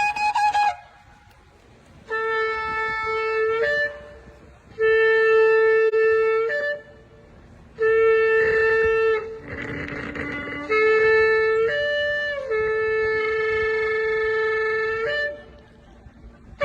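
A shofar (ram's horn) is blown in a series of long blasts, five in all, each held steady for one to three seconds and jumping up in pitch at its end. There are short breaks between the blasts.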